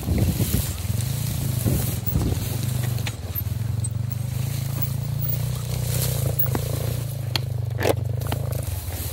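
Yamaha XG250 Tricker's air-cooled single-cylinder engine running at a steady, low speed as the motorcycle pushes through tall dry grass. Scattered sharp clicks and crackles of dry stalks brushing and snapping against the bike ride on top of the engine note.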